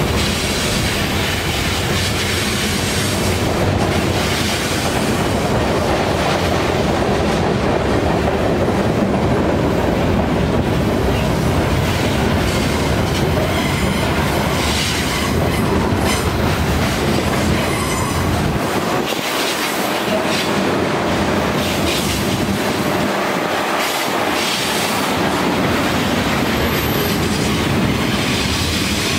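Freight cars rolling past on a curve: a steady rumble of steel wheels on the rails with scattered clicks and clatter, and thin wheel squeal at times.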